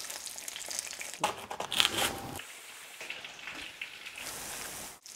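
Chicken thighs frying in oil in a pan: steady sizzling with small crackles. About a second in there is a louder stretch of sharp clicks and crackling lasting just over a second, then quieter sizzling.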